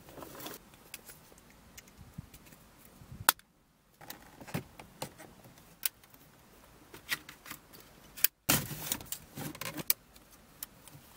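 Scattered clicks and light rattles of plastic dashboard trim, a metal bracket and wiring being handled and pushed back into place in the centre console of a BMW E39, with one sharp click about three seconds in.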